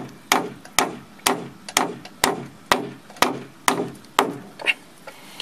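Hammer driving a nail at an angle into a wooden board (toenailing): about ten even strikes, roughly two a second, that stop shortly before the end.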